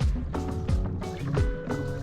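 Background music with a steady beat of about three strokes a second and held notes.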